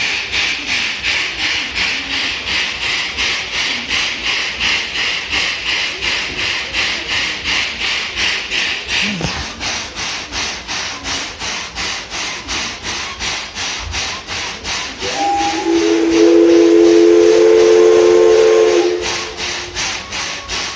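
C11 325 steam locomotive hissing steam, with a steady rhythmic pulsing of about two and a half beats a second. About fifteen seconds in, its steam whistle sounds one long blast of several tones together, lasting about four seconds.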